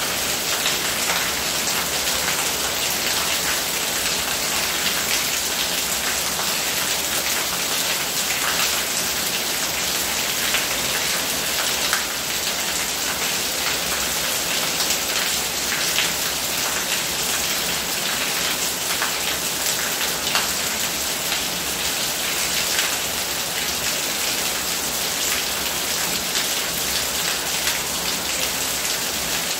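Steady rain falling on hard surfaces, an even hiss with scattered sharper drop splashes.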